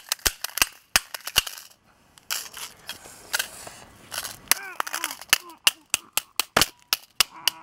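Metal wrench striking a 2.5-inch laptop hard drive again and again: a fast, irregular run of sharp metallic hits, with a brief pause about two seconds in.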